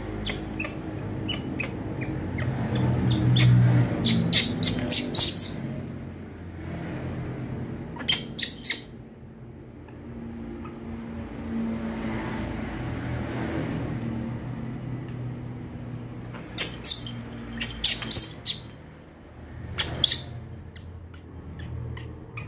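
Baby monkeys clambering in plastic laundry baskets: bursts of sharp clicks and rattles as hands and feet grip and knock the plastic, over a steady low hum.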